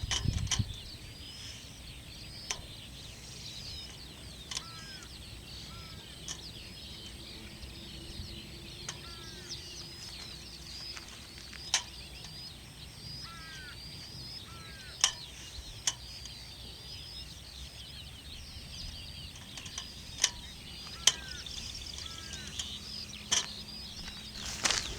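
Songbirds chirping steadily, with one short call repeating every couple of seconds, and a few sharp snaps scattered through.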